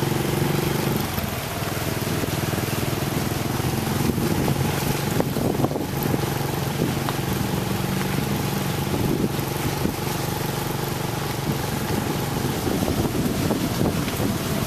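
A vehicle engine running steadily at low speed, an even hum that drops slightly about a second in, with scattered crackles now and then.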